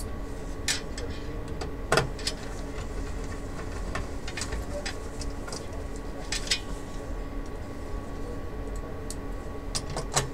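Screwdriver working screws into a monitor's sheet-metal chassis: scattered small clicks and metallic taps of the tool on screw heads and metal, the sharpest about two seconds in, over a steady electrical hum.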